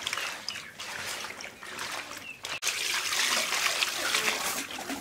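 Water splashing and trickling as hands wash whole climbing perch in a plastic tub of water.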